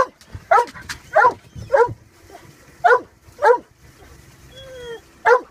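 A dog barking again and again: seven short barks, mostly in pairs about half a second apart, with a brief whine shortly before the last bark.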